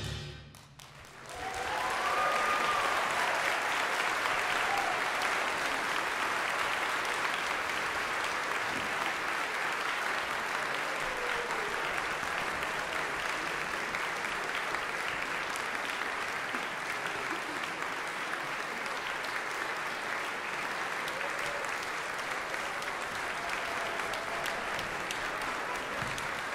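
Audience applauding steadily, starting about a second and a half in after a brief hush.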